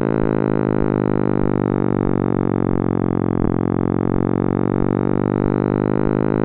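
Sonification of the cosmic microwave background: a loud, steady synthesized hum with many even overtones.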